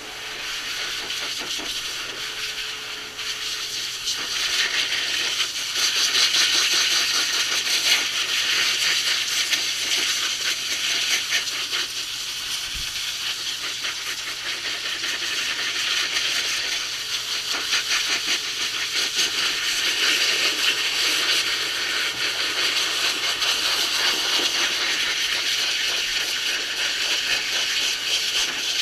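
Hose-type dog grooming dryer blowing air through a cone nozzle onto a terrier's wet coat: a steady rushing hiss that swells and eases as the nozzle moves over the dog.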